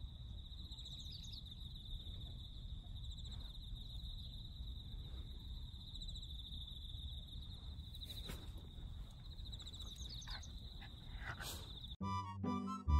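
Autumn field insect trilling in one unbroken high, finely pulsing buzz, with a low rumble underneath. Music starts abruptly near the end.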